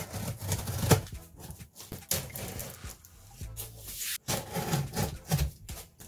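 Scissors slicing through packing tape along the seam of a large cardboard box, with irregular scraping, rustling and a few knocks on the cardboard.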